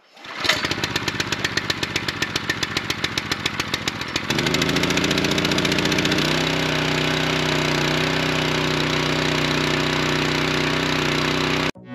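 Small gasoline engine of a portable fire pump starting and running, chugging with a quick even beat for about four seconds, then speeding up in two steps to a steady high run. It cuts off abruptly near the end.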